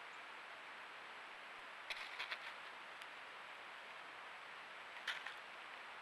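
Steady hiss from the trail camera's microphone, with two short clusters of sharp clicks or taps, one about two seconds in and another about five seconds in.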